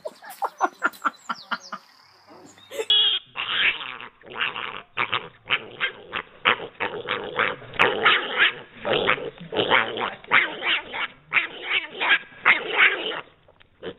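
Piglet squealing in short, loud bursts, about two a second, after a quicker run of short calls in the first two seconds.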